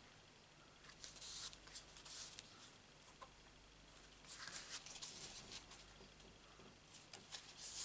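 Faint rustling and scratching of paper card stock being pressed and handled by fingers, in a few short spells.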